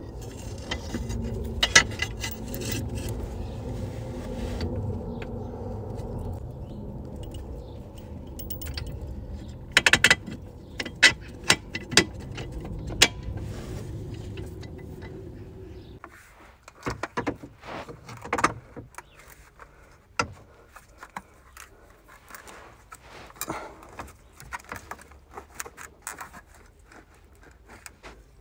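Steel suspension parts and bolts clinking, scraping and knocking as a rear control arm is worked into place by hand, with a light jangle like keys. A steady low hum runs underneath and cuts off suddenly about halfway through, leaving scattered clicks.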